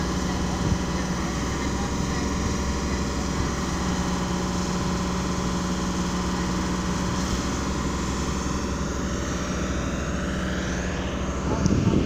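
A machine's engine running steadily with a constant hum that holds the same pitch throughout, and a few bumps near the end.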